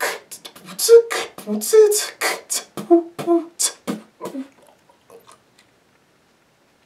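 A man beatboxing: fast, sharp percussive mouth sounds mixed with short hummed notes. The routine stops about four and a half seconds in, leaving only a few faint clicks.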